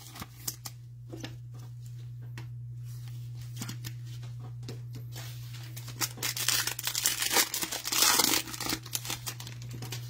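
Gloved hands handling trading cards with light clicks, then about six seconds in a foil card pack crinkling and tearing open for about three seconds. A steady low hum runs underneath.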